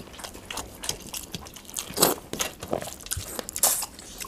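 Eating by hand: chewing and wet mouth smacks, with fingers mixing rice and chicken curry on steel plates, heard as a string of short, irregular clicks; louder smacks come about two seconds in and again near the end.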